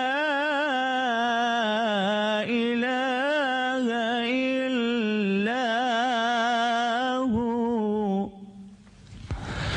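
Man reciting the Quran in the melodic tajweed style, drawing out long, wavering, ornamented phrases. About eight seconds in the voice stops for a short pause, broken near the end by a brief rush of noise.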